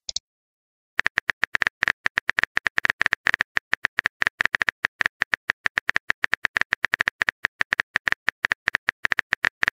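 Phone keyboard typing clicks. A quick, steady run of short taps starts about a second in as a text message is typed out letter by letter.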